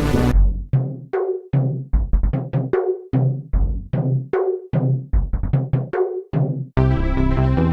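Music: a dense track cuts off just after the start, leaving a sparse passage of single drum strokes in an uneven rhythm, each ringing briefly, some with a short pitched note. A fuller, busier music track comes back in near the end.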